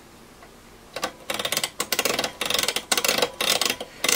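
Rotary wafer switches of a Keithley 260 nanovolt source clicking through their detent positions in quick runs, starting about a second in. The switches are being worked back and forth to spread freshly applied DeoxIT Gold contact cleaner over their contacts.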